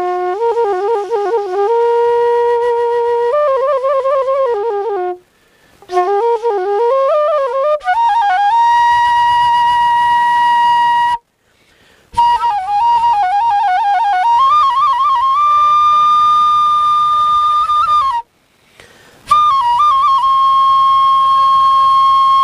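Bansuri (bamboo flute) playing an old folk tune: wavering, trilled phrases alternating with long held notes, broken by three short pauses.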